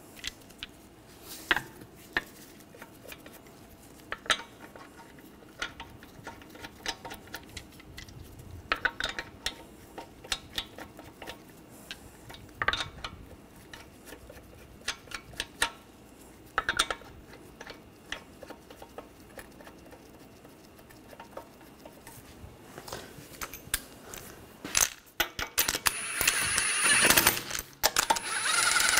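Steel lug nuts clinking in light, scattered clicks as they are threaded by hand onto the wheel studs. About 25 seconds in, a cordless power tool starts running in loud bursts, spinning the lug nuts down.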